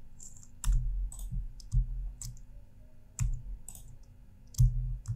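Irregular clicking of a computer mouse and keyboard, about ten clicks at uneven gaps, each with a dull knock. The loudest come about a second in and near the end.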